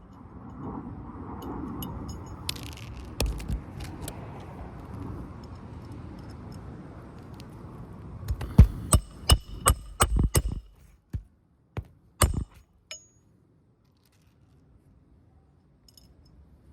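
Scraping and rustling, then a hammer driving roofing nails into a shingle: about seven quick strikes in a row, and one more a couple of seconds later.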